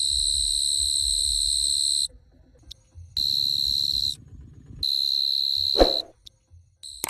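Cricket trilling, a steady high-pitched tone that stops and starts: it runs about two seconds, breaks off, comes back for about a second at three seconds in, and again for about a second from five seconds in. A sharp click comes just before it ends.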